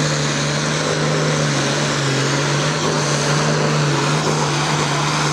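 Ford pulling tractor's diesel engine running flat out at a steady pitch under full load as it drags the weight-transfer sled.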